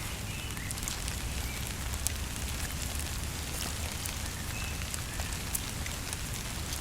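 Steady rain hiss over a campfire, with scattered sharp crackles and ticks from the fire and falling drops, over a low rumble.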